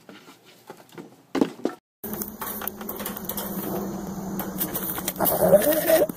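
Light clicks and taps of small goat hooves on wooden boards. After about two seconds, a Nubian goat makes a rough, rattling call that rises into a loud, wavering bleat near the end.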